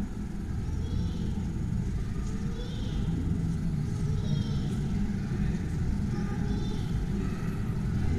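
A steady low rumble, with faint short high chirps recurring every second or so.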